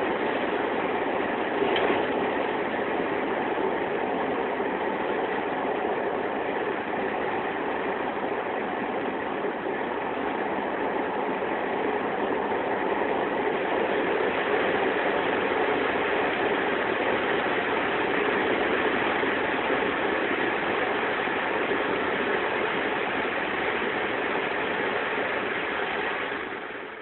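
Steady dense rumble of a moving diesel-hauled car-carrying train echoing in a long railway tunnel, heard from inside a car's cabin on the flat wagon, with a brief knock about two seconds in. The noise drops sharply near the end as the train comes out of the tunnel.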